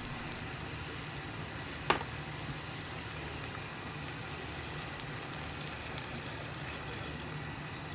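Andouille sausage, onion and bell pepper sizzling steadily in the pot of an electric pressure cooker on sauté mode, with a single sharp click about two seconds in.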